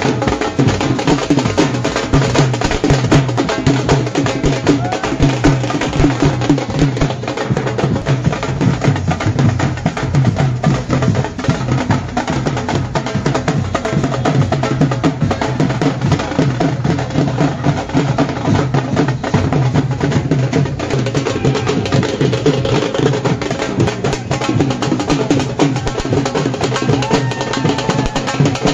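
Live dhol drums played in a fast, steady dance rhythm.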